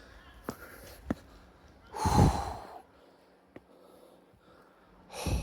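A person breathing out heavily, a loud sigh-like exhale about two seconds in and another near the end, with a few faint clicks between them.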